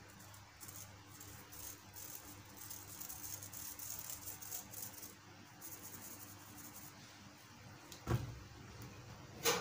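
Handheld wire-mesh flour sifter being shaken and tapped over a glass mixing bowl, a faint rustle of fine ticks as powder falls through the mesh. About 8 s in there is a dull thump, and just before the end a sharper knock.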